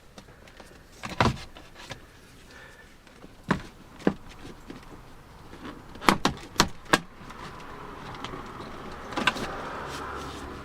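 Sharp clicks and knocks of parts being handled inside a car door opened up for a lock change, with a quick cluster of knocks a little past halfway.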